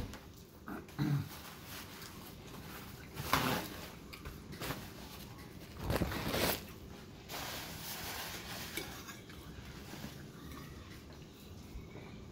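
A man's breath and mouth noises: a short low vocal sound about a second in, then two loud exhales around three and a half and six seconds in, with quiet room tone between.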